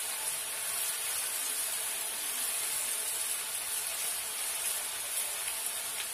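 Chopped onions sizzling steadily in hot oil in a frying pan as they are stirred with a silicone spatula, frying towards a light pink rather than brown.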